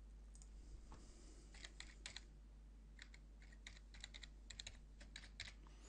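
Faint keystrokes on a computer keyboard as a password is typed: a few quick key clicks about a second and a half in, then a longer run of clicks from about three seconds in.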